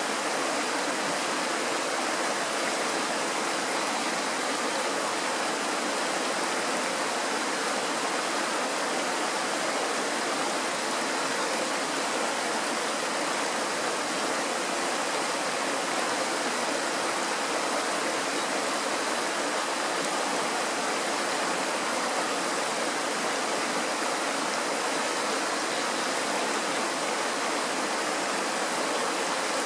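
Mountain stream rushing over rocks in a small rapid: a steady, even rush of white water with no change in level.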